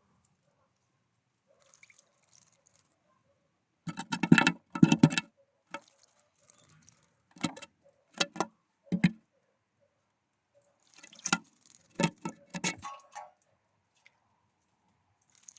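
Birds at a feeder pecking and tapping, a series of sharp irregular knocks in bursts, loudest about four seconds in and again in a run near the end.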